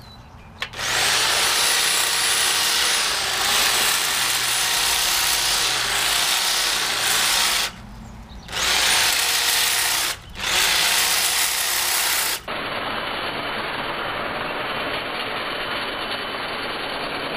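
Electric hedge trimmer running as it cuts along a hedge, its motor note dipping and rising as the blades take load. It starts about a second in and is stopped and restarted twice with short gaps, running on a little quieter in the later part.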